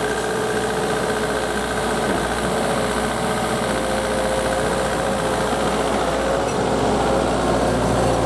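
Diesel engine of a piece of heavy equipment running steadily, with no sudden knocks or changes.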